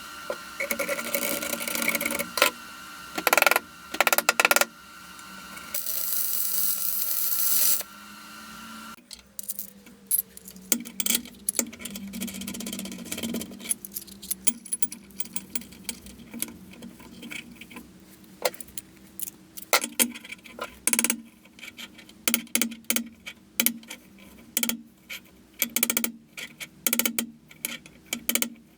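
A machine runs steadily for about nine seconds, with a few short louder bursts and a louder stretch near the middle, then is switched off and winds down with a falling tone. After that comes a long run of light metallic clinks and knocks, irregular and closely spaced, as tools or metal parts are handled.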